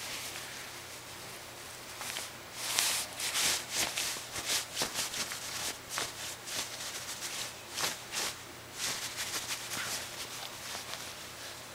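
Bed sheet rustling and scratching in quick, irregular bursts as a cat grips, bites and kicks at the fabric, busiest through the middle and thinning out near the end.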